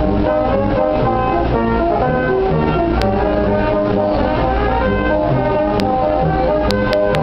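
Army brass band of trombones, trumpets and tuba playing a tune with held notes, loud and steady. A few sharp clicks sound over it midway and near the end.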